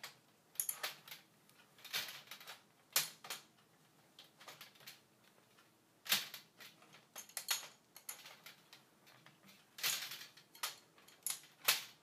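Metal wrench clicking and knocking against a brass flare nut and valve as the nut is tightened onto a copper line: scattered sharp clicks at irregular spacing, the loudest about six and ten seconds in.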